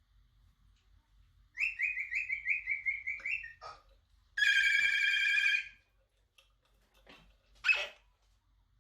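Moluccan cockatoo mimicking a telephone ring: a rapid string of chirping pulses, then a steady warbling ring about a second and a half long. A short single call follows near the end.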